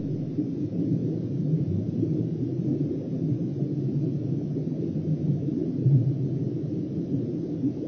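Strong wind buffeting the microphone: a steady, muffled low rumble.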